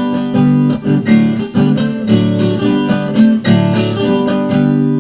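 Viola caipira playing a short instrumental passage between sung verses of a moda de viola: quick plucked notes over ringing low strings.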